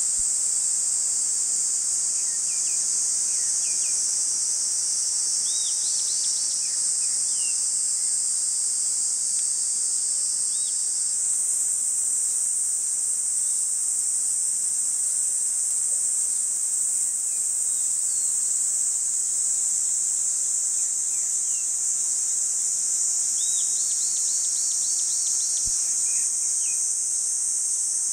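Steady high-pitched insect chorus, with a bird calling in short runs of quick chirps, once about six seconds in and again near the end.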